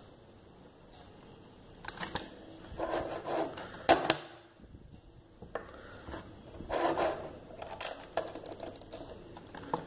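Handling noise from a tablet and its plugged-in USB OTG cable: irregular rubbing and scattered sharp clicks, starting about two seconds in, with the loudest click about four seconds in and a quick run of small clicks near the end.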